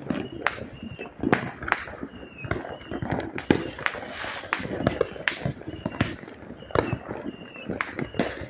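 Fireworks and firecrackers going off all around: an unbroken, irregular barrage of sharp cracks and bangs, several a second, some near and loud, others farther off.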